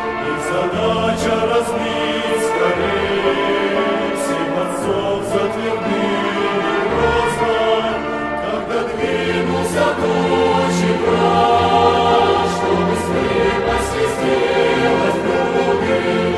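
A choir singing a hymn, sustained chords with the words' s-sounds cutting through now and then.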